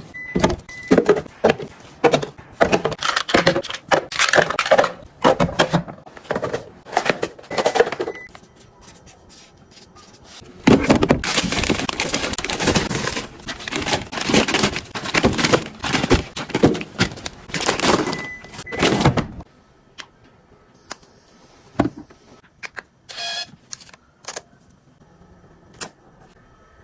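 Plastic fridge storage boxes being handled: repeated knocks, clicks and rustling, busiest in the first two-thirds, then only a few scattered clicks after about nineteen seconds.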